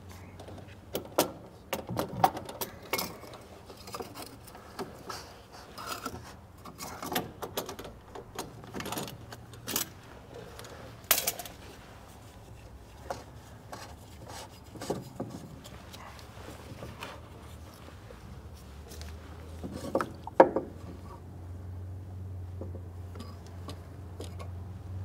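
Spin-on fuel filter and water separator being unscrewed and pulled off by hand: scattered clicks, knocks and small rattles of the canister and nearby parts being handled, the loudest knock about twenty seconds in. A low steady hum comes in near the end.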